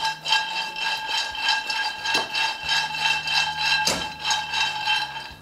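Hazelnuts rattling in a frying pan as it is shaken and tossed over a gas flame to toast them, in even strokes about two to three a second, with a steady high ringing under it.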